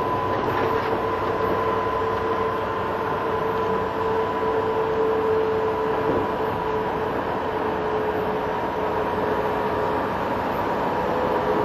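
Steady cab noise of a truck at highway speed: engine and road noise with a steady whining tone running through it.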